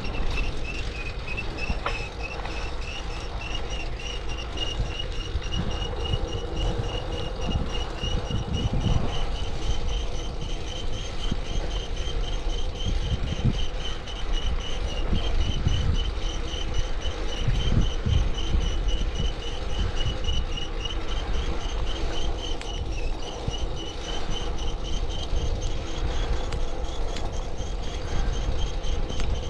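Over-tightened bicycle chain, run with no slack, giving a fast, pulsing high-pitched whine as the bike is pedalled, rising and falling slightly in pitch with pedalling speed. Wind buffets the microphone in low gusts underneath.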